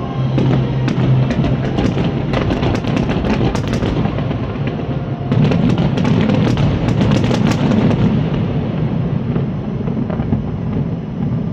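Fireworks bursting in rapid barrages, with many sharp cracks and crackles over a low rumble, densest about halfway through. Music plays along with them.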